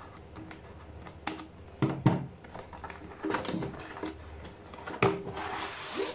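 A cardboard router box being handled and opened by hand: several sharp taps and knocks against the box, then the lid sliding off with a papery scraping rustle near the end.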